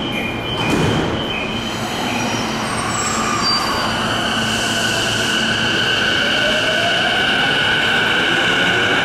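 JR Keiyo Line electric train running on the rails, with steady high-pitched whining tones and a lower tone rising in pitch over the last few seconds.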